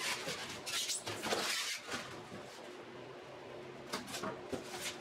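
Foam and cardboard packaging rubbing and scraping as an air cleaner is worked out of its box, with a longer scrape about a second in and a couple of short knocks near the end.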